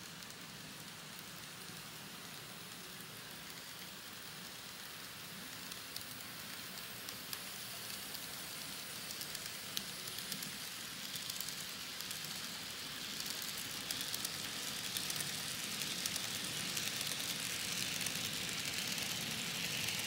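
An N-scale model coal train of empty hoppers behind diesel locomotives running along the track: a steady hissing whir of wheels on rail and motor, with scattered small clicks, growing louder over the second half.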